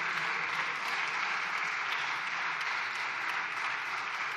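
Deputies in a parliamentary chamber applauding steadily, a dense sustained clapping from many hands.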